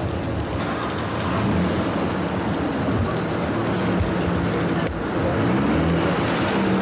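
Car engine running with road noise, its pitch rising and falling a few times.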